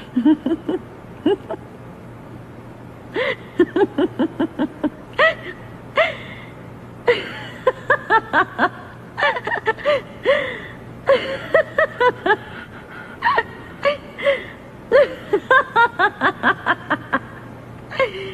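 A person giggling in repeated fits of short, rapid laughing syllables, with pauses between the runs. A steady low hum sits underneath.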